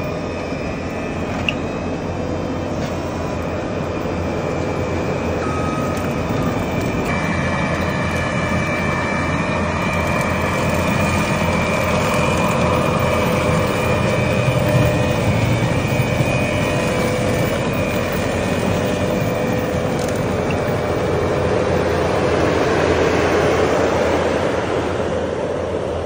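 Case compact track loader's engine running hard, driving a Kubota SC4072 hydraulic brush cutter through tall weeds and brush: a steady machine noise with a thin high whine. It grows louder in the middle and falls off near the end.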